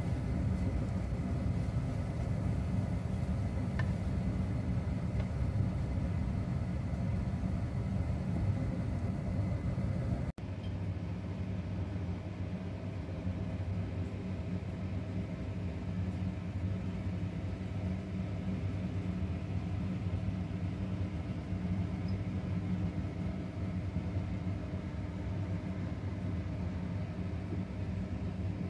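Steady low rumble and hum, cut off for an instant about ten seconds in before carrying on unchanged.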